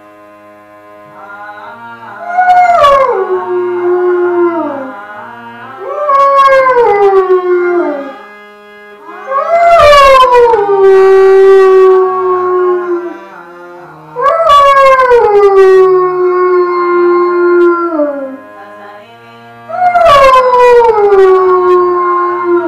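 A dog howling along to music: five long howls, each starting high, sliding down and holding a lower note for a couple of seconds. Quieter instrumental music with steady notes plays underneath.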